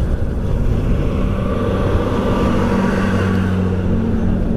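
Motorcycle engine running steadily at cruising speed, its even hum holding one pitch from about a second in, with wind rushing over the microphone.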